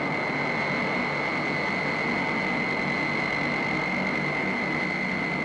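Steady turbine-engine sound effect: an even rushing noise with a constant high whine.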